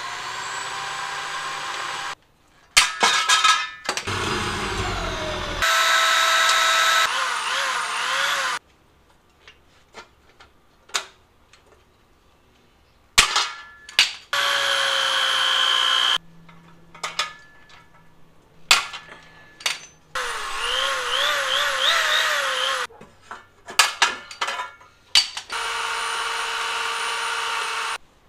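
Electric drill running in short bursts of two to three seconds, boring holes through aluminum angle, its whine wavering in pitch as it bites. Between the bursts a hand pop-rivet tool sets aluminum rivets with sharp clicks and snaps.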